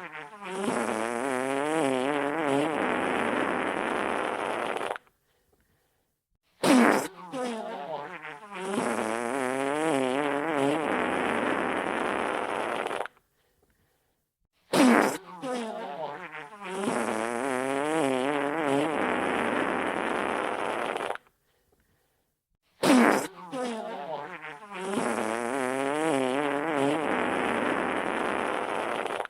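Wet fart: a sharp, loud start, then about five seconds of wavering, sputtering flatulence. The same fart repeats about every eight seconds, with short silences between.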